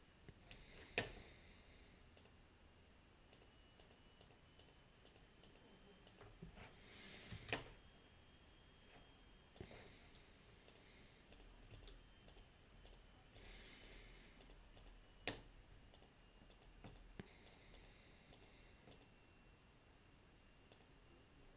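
Faint computer mouse clicks, scattered in short quick runs, with a few louder single clicks.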